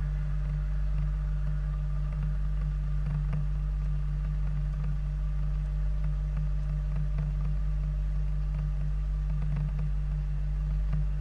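Military vehicle's engine idling: a steady low drone, with a few faint clicks over it.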